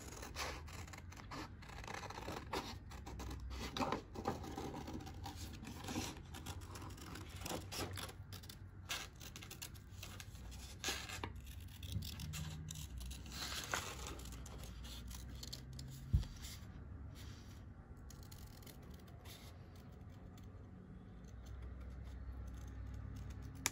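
Scissors snipping through thin card to cut out a circle, irregular snips with the card scraping and rustling in between. The snips thin out over the last several seconds.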